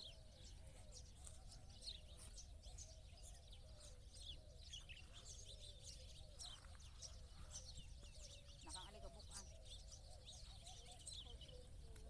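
Many small birds chirping faintly, short quick calls overlapping throughout, over a low steady rumble.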